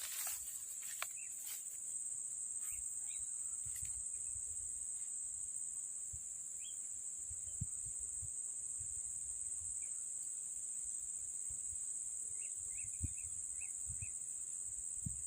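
Insects droning steadily at a high pitch, with a few clicks in the first second or two and scattered low rumbles.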